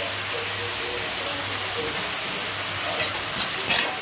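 Steamed cabbage sizzling steadily in hot oil in a karahi as it is tipped in, with a few sharp knocks near the end.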